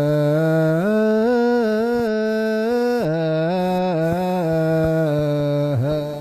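A single male voice chanting an Ethiopian Orthodox Ge'ez liturgical melisma, holding long notes that step up and down in pitch with small wavering ornaments. The chant breaks off at the very end.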